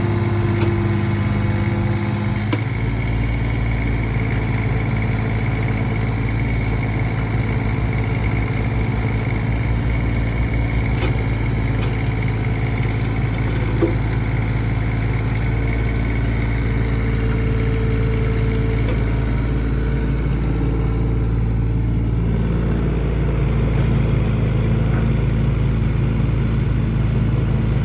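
Takeuchi TB014 mini excavator's diesel engine running steadily.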